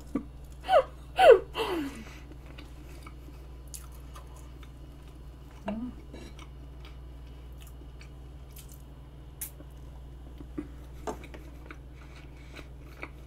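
Quiet chewing of soft vanilla pound cake with whipped cream, with small mouth clicks scattered throughout. About six seconds in, a fork clinks against the black skillet-shaped serving pan as a piece is cut. Near the start there are two short falling hums from the eater.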